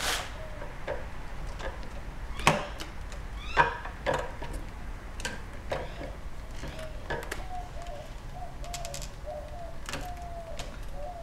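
Scattered clicks and knocks of plastic and metal as a replacement nickel-metal-hydride module is slipped back into a 2005 Toyota Prius high-voltage battery pack. A faint wavering bird call comes in during the second half.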